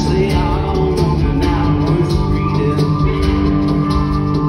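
Live rock band playing an instrumental passage: electric guitars and keyboard over a steady drum kit beat.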